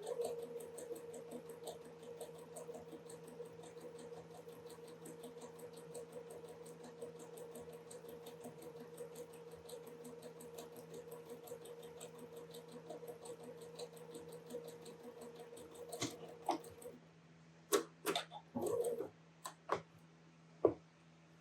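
Sewing machine stitching a seam at one steady speed, a steady motor hum under rapid needle ticks, then stopping suddenly about two-thirds of the way through. A few sharp clicks follow near the end.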